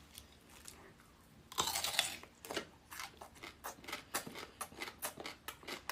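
Close-miked chewing of crisp food: quiet at first, then from about a second and a half in a rapid run of sharp crunches, several a second.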